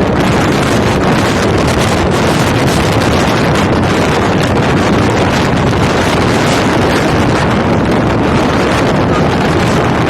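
Strong wind blowing over the microphone: a loud, steady rush of noise with no break.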